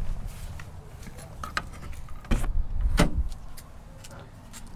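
The driver's door of a Jeep Wrangler TJ being opened: small latch clicks, then two heavy knocks about two and a half and three seconds in, over a low rumble.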